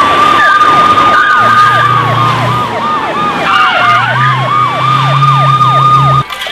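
Police sirens: a fast yelp sweeping down about three times a second over a slower wail that rises and falls, cut off suddenly about six seconds in.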